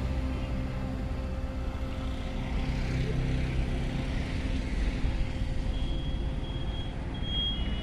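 Road traffic passing on a busy highway: cars, autorickshaws and scooters running by in a steady low rumble, with one engine's hum swelling briefly about three seconds in. Near the end a high-pitched beeping starts, repeating in short pulses.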